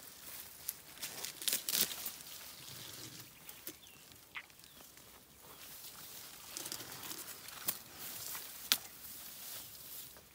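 Young elephant browsing in leafy bush: leaves rustle and twigs snap and crackle as its trunk pulls branches down to feed. The snaps come unevenly throughout, and the sharpest are near two seconds and near nine seconds in.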